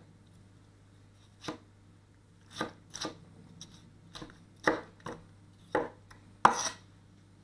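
230 mm Catcheside Forged Geometry gyuto chopping a tomato on a wooden cutting board: about ten separate knife strikes on the board, a few a second and irregularly spaced, the loudest near the end.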